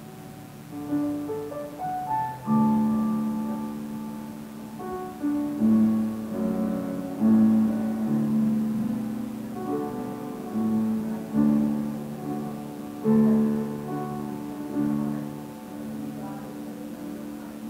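Slow instrumental worship music: held chords under a simple melody, with new notes struck every second or two and left to ring.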